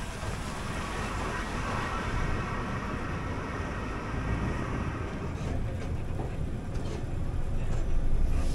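Bus running along a road: a steady rumble of engine and road noise.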